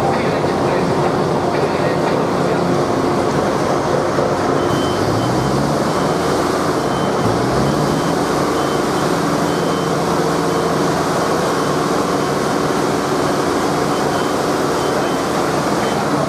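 A vehicle or machine engine running under a steady noisy din, its pitch rising twice, about five and about seven seconds in, with short high beeps now and then.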